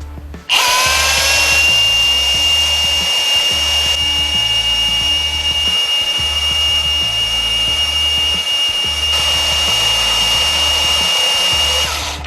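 Power tool motor spinning up about half a second in and running with a steady high-pitched whine for about eleven seconds, then stopping near the end. Background music with a repeating bass beat plays underneath.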